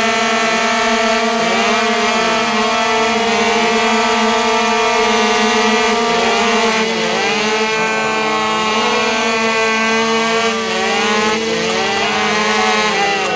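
Tuned 50–80 cc scooter engines doing a stationary burnout, one held at a high, steady buzzing pitch throughout. From about halfway on, another engine revs up and down again and again over it.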